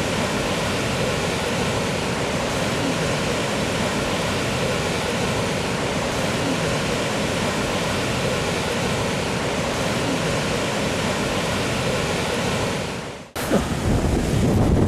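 Heavy surf of a storm-churned sea in the wake of a typhoon, a steady roar of breaking waves. About 13 seconds in it cuts off abruptly and comes back with wind buffeting the microphone.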